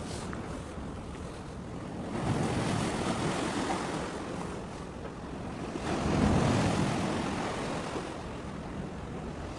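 Wind buffeting the microphone in gusts over a steady rush of sea, with stronger gusts about two seconds in and again about six seconds in.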